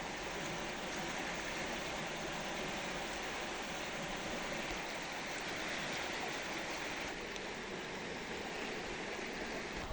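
Steady rushing of the Lower Zab river's water, running high after heavy rain.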